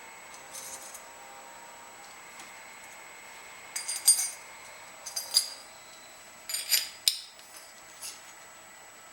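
Small metal parts clinking and rattling against each other in several short bursts, over a faint steady hum.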